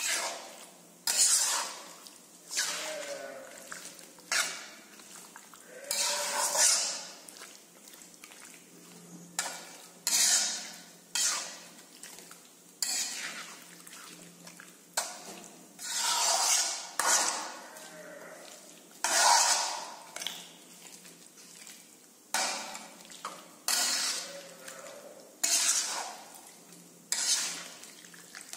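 A spatula scraping and stirring chunks of marinated chicken in a heavy iron wok, with scrapes and clinks against the metal pan about every one to two seconds.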